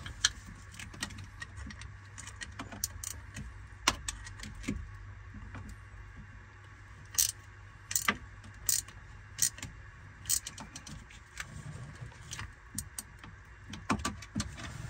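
Irregular metallic clicks and clinks of a 9/16 wrench and hand tools working the drain plug out of the back of a marine engine's water pump, over a faint steady low hum.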